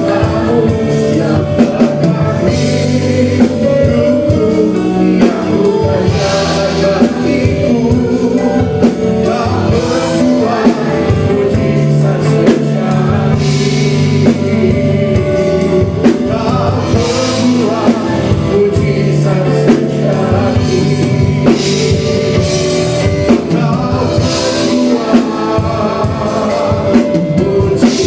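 Live Christian worship song: a band with drum kit and guitar playing under singing.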